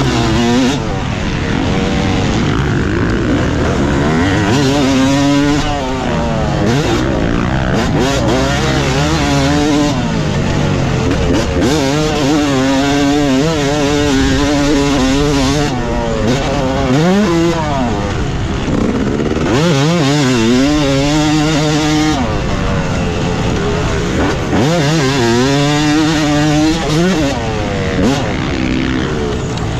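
Yamaha YZ250 two-stroke single-cylinder motocross bike being ridden hard, its engine revving up and falling back again and again as the throttle is worked.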